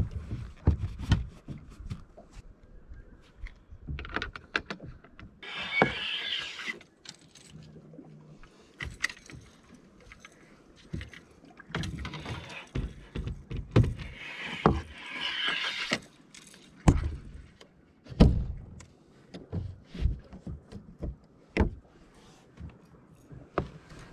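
Fishing gear being handled on the deck of an aluminium bass boat: scattered knocks, clunks and clicks. Two longer hissing stretches come about five and fourteen seconds in.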